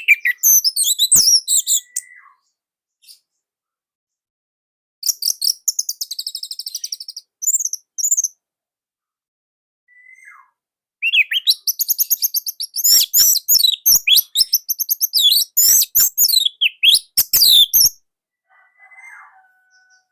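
Orange-headed thrush singing in phrases of fast, high-pitched notes, with pauses of a few seconds between them; the longest phrase runs about seven seconds in the second half.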